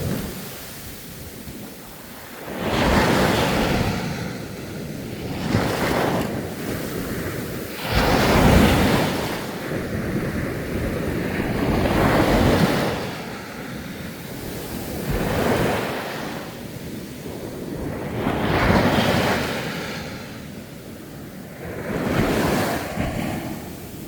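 Sea waves breaking and washing up a sandy beach, a new surge about every three to four seconds, each swelling and then fading.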